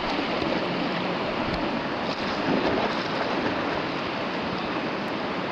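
River rapids: steady rushing of whitewater.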